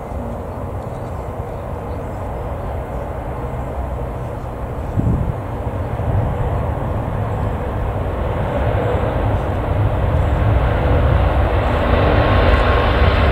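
Jet airliner's engines rumbling and growing steadily louder as the aircraft approaches, with a steady whine coming through in the second half.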